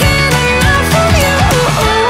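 Background music: a pop-rock song with guitar and a steady beat.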